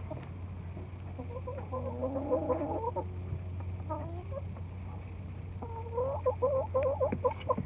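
Chickens clucking: a bout of short, repeated clucks about a second in, then a denser, louder run of clucks near the end, over a steady low hum.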